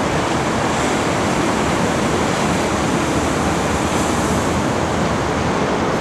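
Steady rushing noise of a Hong Kong MTR M-Train running along the tracks below as it departs Kowloon Bay station, with no distinct clanks or horn.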